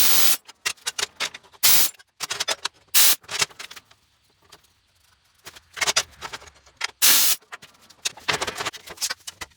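Metal shop work heard as a string of short, sudden noisy bursts, clanks and clicks, with brief quiet gaps between them and a quieter stretch near the middle.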